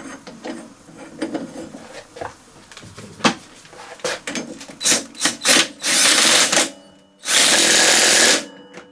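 Light metallic clicks of a bolt being fitted, then an impact wrench firing: a few short blips, then two longer bursts of about a second each, driving the stepped bolts of a Hayter mower's blade brake home.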